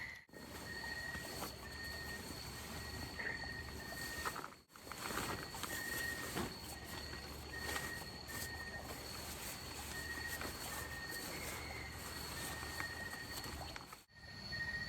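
Night chorus of insects: a steady high-pitched trill, with a shorter call repeating roughly once a second and scattered small rustles and clicks. The sound cuts out briefly twice.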